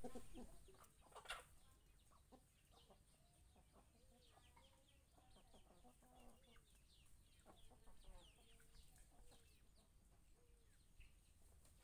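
Chickens clucking softly as they forage, with many faint, quick high chirps among the low clucks. A louder sound dies away in the first second, followed by a single sharp knock.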